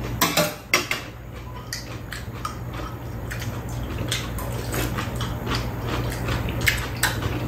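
Metal spoons and chopsticks clicking and scraping against bowls and a metal tray while two people eat, in short irregular clinks over a steady low hum.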